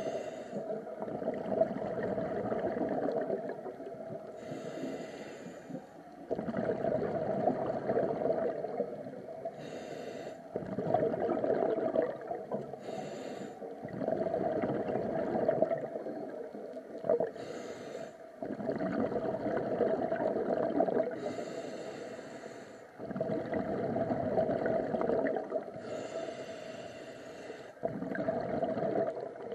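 Scuba diver breathing through a regulator: a short hiss on each inhale followed by a longer bubbling gurgle on each exhale, repeating steadily about every four to five seconds.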